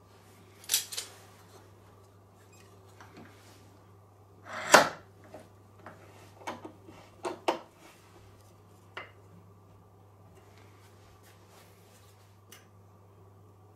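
Steel F-clamp being set on a board and tightened against a wooden block: a few sharp metallic clacks and knocks, the loudest a little under five seconds in, then a run of lighter clicks and taps, over a faint steady low hum.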